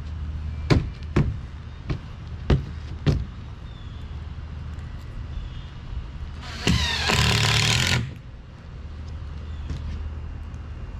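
Shed construction work: five sharp knocks in the first three seconds, then a loud, harsh power-tool burst about six and a half seconds in that lasts about a second and a half, over a steady low hum.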